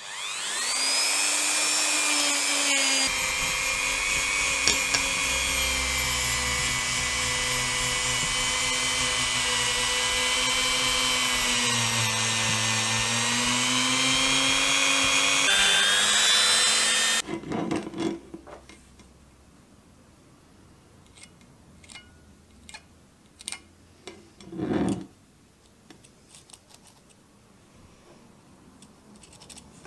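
Handheld rotary tool spinning up and running at high speed with a wire brush wheel polishing a metal figurine, its pitch dipping briefly about twelve seconds in, then cutting off about seventeen seconds in. Afterwards faint scrapes and a few light knocks of the piece being handled.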